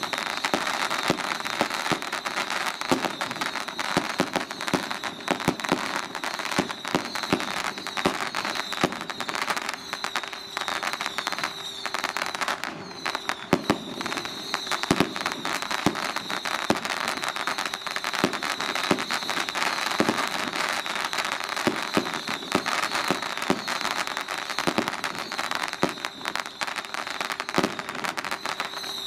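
A long string of firecrackers going off in a dense, unbroken crackle, with louder bangs scattered through it.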